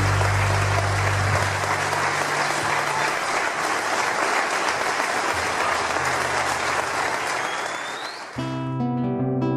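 Audience applause at the end of a live Argentine folk song, over the fading last chord. About eight seconds in the applause cuts off and the next track begins with acoustic guitar picking.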